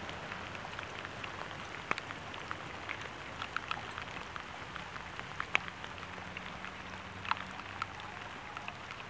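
Light rain: a steady hiss with irregular drops ticking on leaves and surfaces, a few sharper than the rest.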